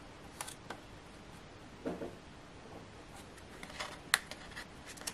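Card pieces being handled on a cutting mat: faint rustles and light taps of cardstock, with a sharper tick about four seconds in.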